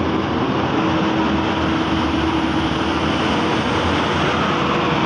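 Mercedes-Benz tour coach driving past and away, its engine drone and tyre noise mixed with steady road traffic.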